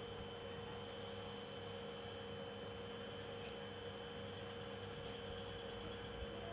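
Faint steady hum with a few fixed tones over an even hiss: background noise with no distinct event.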